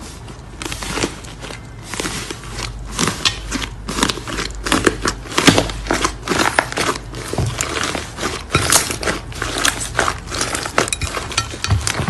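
Slime being squeezed and kneaded by hand, giving off dense, irregular crackling and crunchy popping clicks, over a steady low hum.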